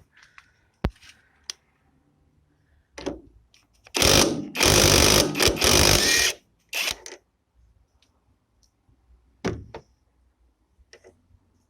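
Repair work with tools: scattered clicks and knocks, and a loud, noisy burst of about two seconds near the middle.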